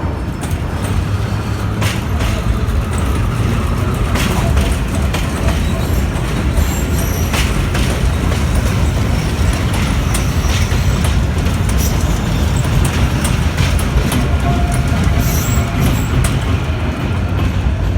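Vintage IRT Low-Voltage subway car running on the rails: a loud, steady low rumble with scattered clicks and rattles.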